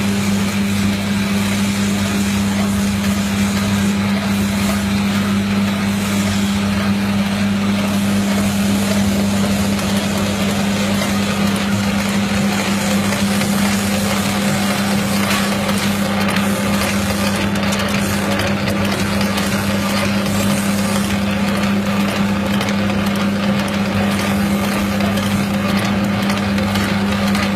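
Electric meatball-forming machine running steadily, its motor giving a constant low hum over an even mechanical whir.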